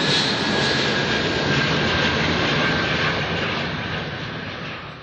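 Airplane engine noise: a steady, loud rush with a high whine that slowly falls in pitch, fading away near the end.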